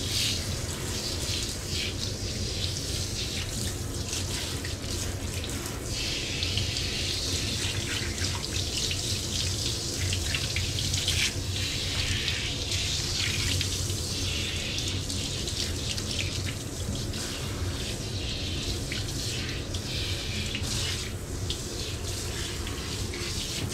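Handheld shower head running, its spray hissing steadily onto a wet dog's coat and the bathtub floor.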